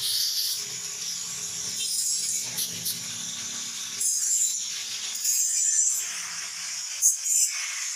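Hot steel knife blade, forged from leaf spring, hissing and sizzling in spurts as it is dipped repeatedly into a water trough to cool. A sharp knock about seven seconds in.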